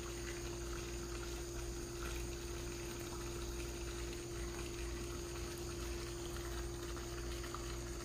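Microwave oven running with a steady electrical hum, with faint crackling underneath.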